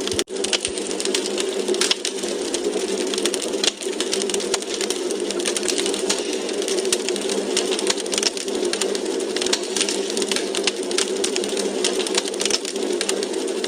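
Wood fire crackling in a fireplace: a steady hiss of burning with frequent sharp, irregular pops and snaps from the logs.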